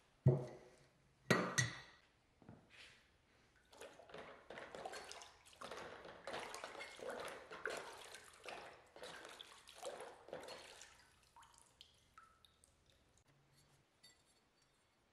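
Two sharp knocks near the start, then a rusty axe head held in pliers swished about in a bucket of vinegar for several seconds, the liquid sloshing and dripping as the rust-removal soak is worked.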